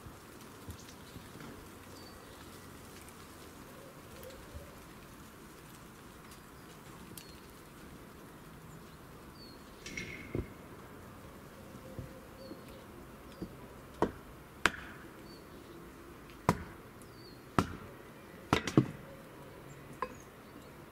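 Sharp knocks at irregular intervals, mostly in the second half, over faint high bird chirps and a steady outdoor hush.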